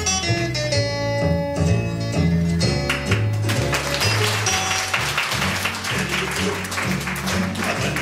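Instrumental music: a bass line under picked notes, turning to fast, dense strumming about three seconds in.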